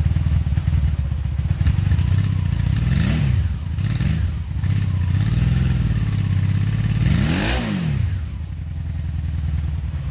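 A 2002 Honda Magna VF750C's liquid-cooled V4 engine idles, still cold shortly after a cold start. The throttle is blipped twice, a few seconds apart, and each time the engine note rises and falls back to idle.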